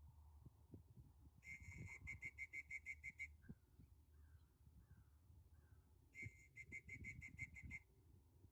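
Faint bird calls: two bursts of rapid, evenly repeated high notes, with a run of four short falling whistled notes between them.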